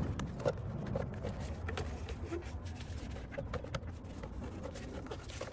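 Rubber intake air tube being worked onto the throttle body by gloved hands: faint rubbing with many small light clicks from the tube and its hose clamps, over a low steady background rumble.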